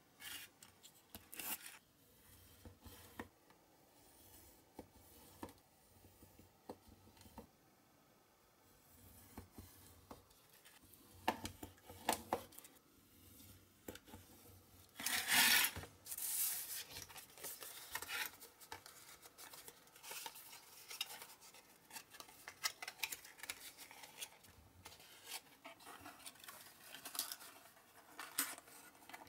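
Snap-off utility knife slicing thin printed card along a metal ruler on a cutting mat, in short scratchy strokes with small clicks from the ruler and card being handled. The longest and loudest stroke comes about halfway through. Toward the end the card is creased and folded.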